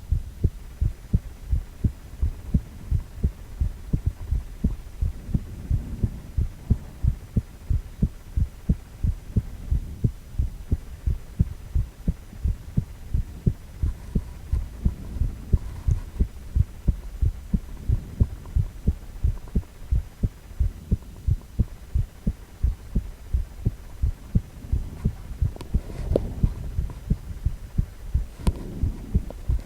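A man's heartbeat: a steady, regular rhythm of low thumps over a faint low hum.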